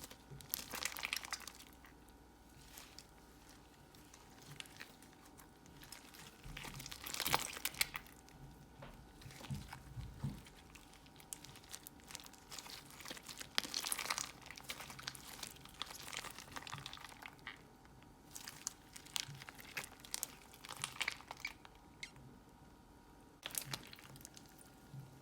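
Slime being squeezed and worked by hand, giving crackling, crinkling pops that come in short clusters every few seconds.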